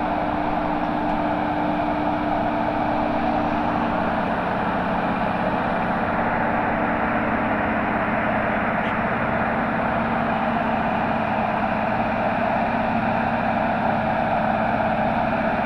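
Indian Railways WAP-4 electric locomotive running its cooling blowers: a loud, steady whirring noise, with a lower hum in it that fades out about five seconds in.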